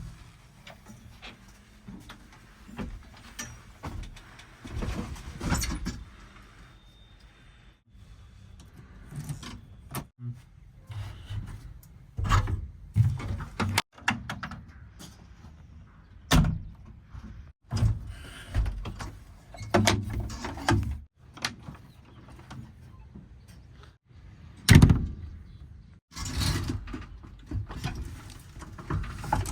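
Heavy machinery at work: a low engine rumble with repeated clanks and thuds, in short stretches that cut off abruptly every few seconds. The loudest thud comes near the end.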